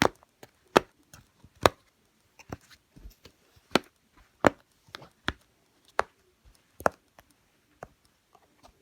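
Dimple fidget toy being pressed: a series of sharp clicks at uneven intervals, roughly one a second, with fainter clicks between.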